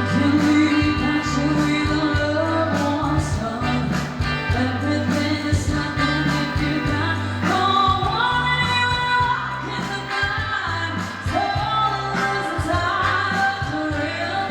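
Pop song with singing over a steady beat.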